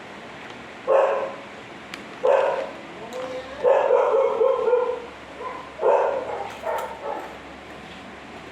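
A dog barking, about five barks spread over several seconds, one of them drawn out for over a second.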